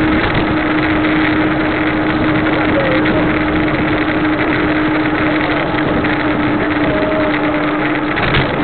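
Steady wind and rolling noise on the microphone of a camera moving along a paved road, with a constant low hum under it.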